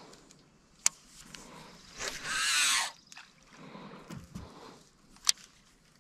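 Handling noise from fishing in a small boat: a sharp click about a second in, a hissing rush lasting about a second near the middle, which is the loudest sound, and another sharp click near the end.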